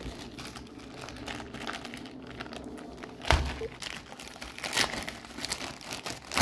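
Clear plastic packaging crinkling and rustling as it is handled and opened by hand, with a few louder crackles, the first about halfway through.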